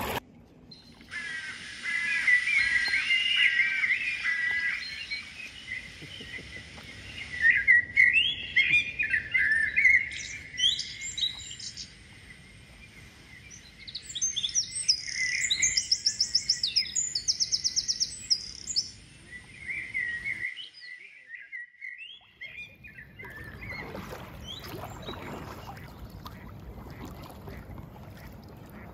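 Songbirds singing, with several chirping and whistled calls overlapping and a fast run of repeated high notes around the middle. The birdsong breaks off about two-thirds of the way through, followed by the soft swish and splash of kayak paddling.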